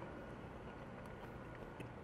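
Faint, steady background noise with a low hum, and a light click near the end.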